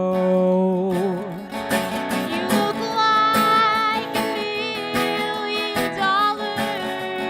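Live folk music: acoustic guitar strumming under a held, wavering melody line that slides in pitch about two seconds in.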